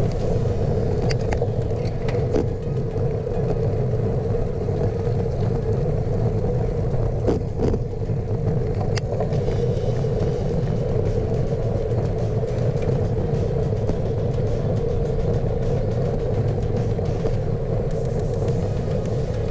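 Steady wind and road rumble from riding a bicycle on cracked asphalt, picked up by a bike-mounted camera, with a constant hum in it and a few faint ticks from bumps.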